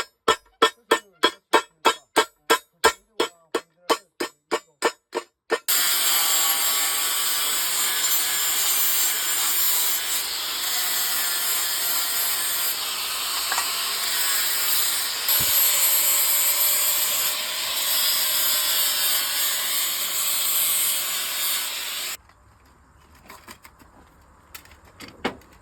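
Rapid hammer strikes on steel, about three a second, for the first several seconds. Then a power tool runs without a break with a loud hiss and a faint wavering whine, and cuts off abruptly a few seconds before the end.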